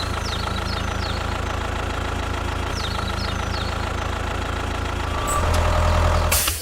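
Engine idling steadily with a low, even chug, growing a little louder and changing tone about five seconds in. Faint high chirps sound over it a few times.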